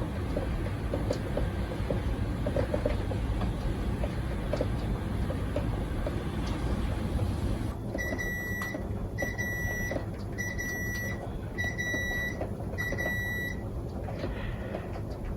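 Steady heavy rain, with scattered drip ticks. About halfway through, an electronic beeper sounds five times, each beep under a second long and a little over a second apart.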